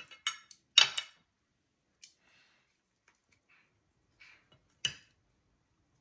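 Metal fork and knife clinking and scraping against a ceramic dinner plate while a salmon fillet and asparagus are served onto it. There is a quick run of clinks in the first second, a few faint taps, then one sharp clink near the end.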